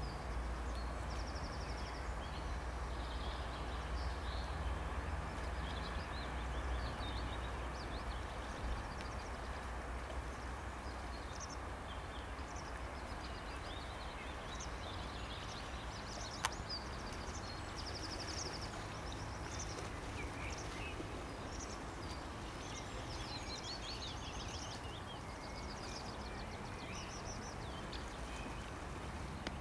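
Small birds chirping and singing in short trills over a steady rushing background, with a low rumble that eases after the first several seconds. A single sharp click comes about halfway through.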